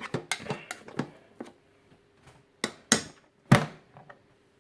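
A utensil knocking and scraping against the inner pot of a rice cooker while stirring yellow rice. A quick run of small clicks comes first, then three louder sharp knocks in the second half, the last the loudest.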